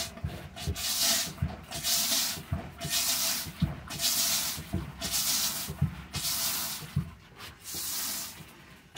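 Portable chemical toilet's hand flush pump worked up and down, about one stroke a second, each stroke a hiss of rinse water spraying into the bowl with a low knock from the plunger. The last strokes are fainter.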